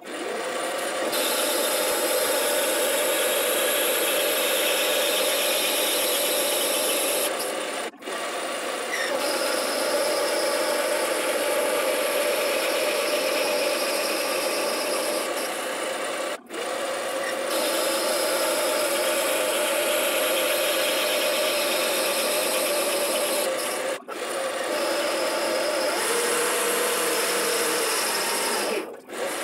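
Metal lathe running, its cutting tool working a spinning brass rod: a steady running noise with a constant hum and a hiss, breaking off briefly about every eight seconds.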